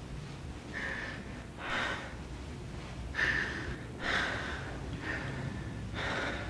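A person breathing heavily: about six loud, noisy breaths or gasps, roughly one a second, over a low steady hum.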